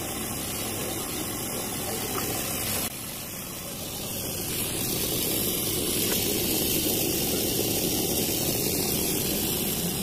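LG inverter refrigerator compressor running with a steady hum, a little louder from about the middle on. It is running again after a reset of the inverter control, which shows the compressor is not broken.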